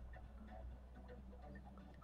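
Near silence: a faint low hum with soft, irregular ticks.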